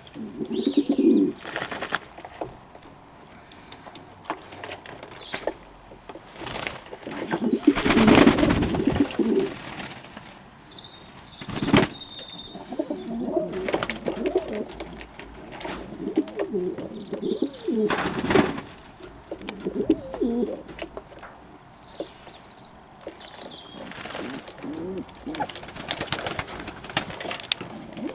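Fantail doves cooing in repeated bouts, with a few sharp clicks between the calls and faint high chirps.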